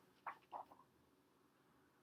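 Near silence: room tone, with two faint short sounds in the first second.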